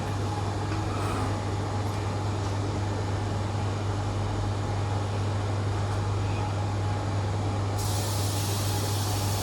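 A steady low hum, then about eight seconds in a sudden hiss of R-404A refrigerant gas starts as the charging hose is purged before charging the chiller.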